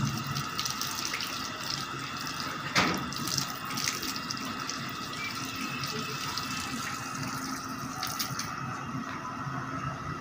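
Water running steadily, as from a tap, with a sharp knock a little under three seconds in.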